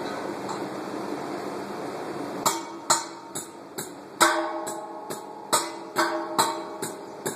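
Hammer blows on a steel anchor bolt being driven into a concrete pad, each strike ringing metallically, about two a second, starting about two and a half seconds in. Before the hammering there is a steady rushing noise.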